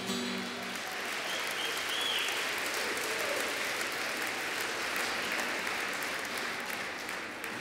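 Audience applause from a large seated crowd, steady and easing off near the end, with the last held note of the song dying away in the first second.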